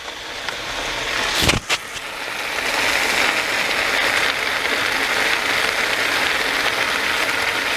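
Chopped zucchini, squash and bell pepper sizzling in a pan on a burner just turned up high, the sizzle growing louder over the first few seconds and then holding steady. A sharp knock sounds about one and a half seconds in.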